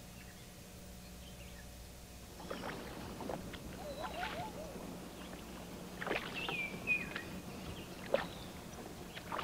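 Oars of a small wooden rowboat dipping and pulling through calm water: soft splashes and knocks start about two seconds in, with a few short high squeaks. A faint low hum lies under it.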